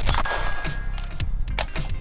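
Background music with a steady beat, about two beats a second. Right at the start there is a single sharp crack with a ringing tail.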